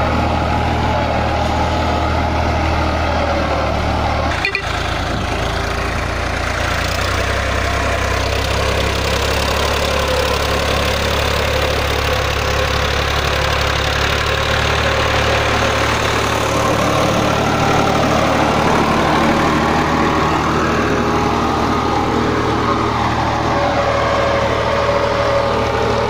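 Escort 355 tractor's diesel engine running steadily under load while pulling a tine cultivator through dry soil.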